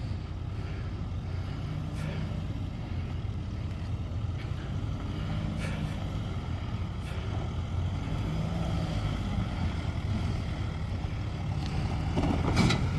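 Nissan Navara ute's engine running steadily at low revs as it crawls over deep ruts, slowly getting louder as it comes closer. A brief louder rush of noise near the end.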